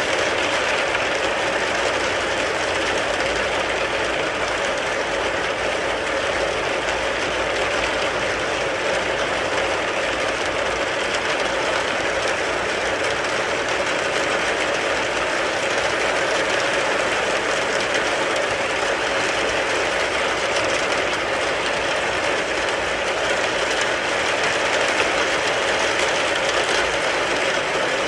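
Steady rain falling on a car, a dense, unbroken patter of drops on the car's body.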